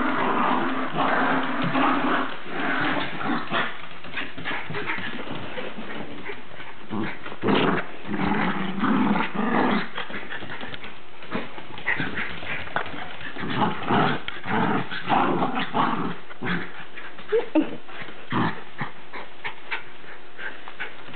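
Jack Russell terriers play-growling as they tussle over a toy: steady growling for the first few seconds, then in short spells with pauses between.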